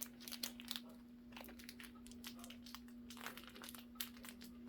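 Packaging being handled and crinkled: soft rustling with scattered light clicks and crackles, over a faint steady hum.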